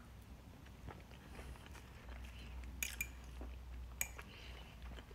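Quiet eating: a fork clicking sharply against a plate about three times, with faint chewing.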